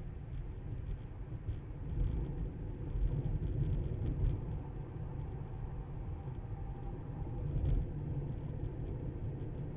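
Low, steady road and tyre rumble from a Tesla driving on the road, with a faint hum partway through.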